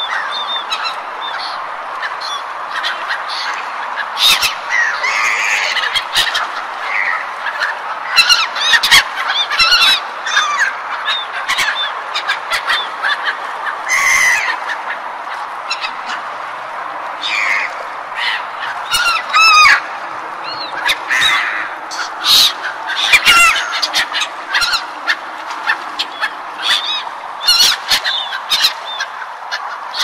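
A flock of gulls calling: many short, harsh cries overlapping and coming in quick succession, over a steady background noise.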